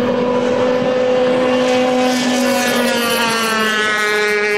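Outboard engines of several racing hydroplanes running flat out together, a steady high-revving drone of overlapping engine notes. In the second half a second engine's higher note comes in and its pitch slides gently down as the boats go by.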